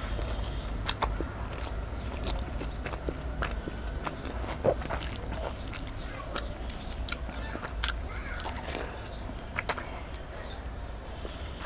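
Close-up eating sounds: fingers mix rice and curry on a steel plate while the eater chews with wet mouth smacks, giving a scattered run of small sharp clicks over a faint low hum.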